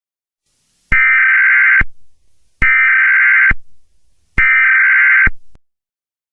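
Emergency Alert System SAME digital data bursts: three identical harsh warbling bursts of about a second each, a little under a second apart.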